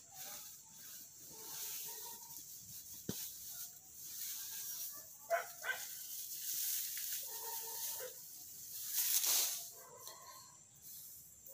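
Leafy plants rustling as they are handled, loudest about nine seconds in, with short animal calls recurring in the background every few seconds.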